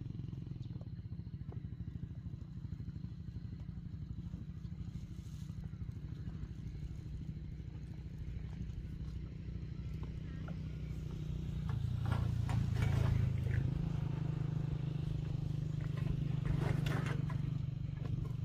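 A small engine running steadily with a low, even pulse, getting louder about twelve seconds in.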